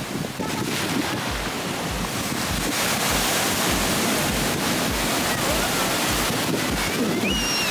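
Ocean surf washing onto a beach, with wind buffeting the microphone in low thumps.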